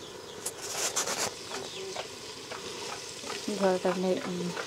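A spatula stirring and scraping chicken curry in a rice cooker's pot, with the masala sizzling as the meat cooks in its own released juices. There is a cluster of louder scraping strokes about a second in.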